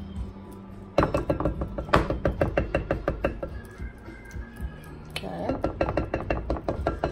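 Wooden spoon knocking and scraping against a glass mixing bowl while working a thick salad mixture: two runs of quick taps, about six a second, one starting about a second in and another after about five seconds.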